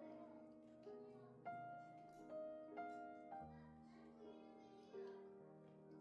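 Soft instrumental background music: slow, gentle notes struck about once a second and left to ring.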